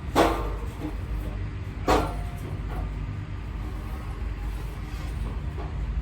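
Two sharp, loud clanks, one just after the start and one about two seconds in, with a few fainter knocks, over a steady low rumble.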